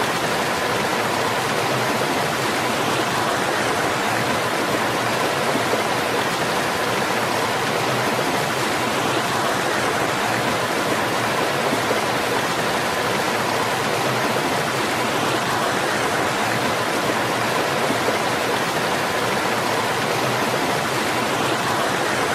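Small woodland waterfall on a rocky stream, water splashing steadily into a pool as an even, unbroken rush.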